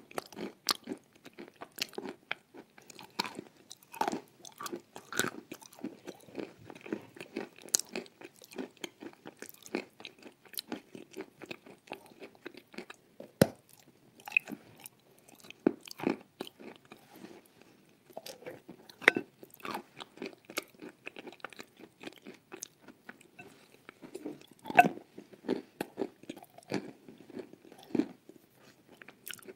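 Close-miked chewing and biting of a soft dessert thickly coated in creamy brown sauce. Many sharp mouth clicks come at irregular intervals over steady chewing noise.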